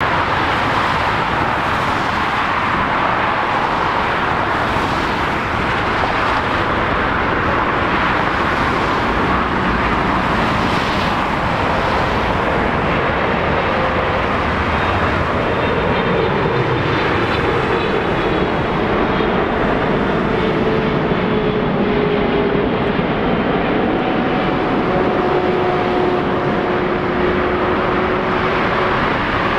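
Jet engine noise of a Boeing 777F on final approach, its GE90 turbofans giving a steady rush. From about halfway through, a whine in several tones slowly falls in pitch.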